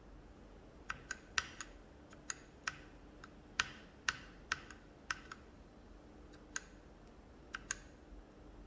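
Mechanical keyboard with Gateron Yellow linear switches, some lubed with Durex KY Jelly, being typed on slowly in a sound test: about fifteen irregularly spaced keystrokes, some in quick pairs.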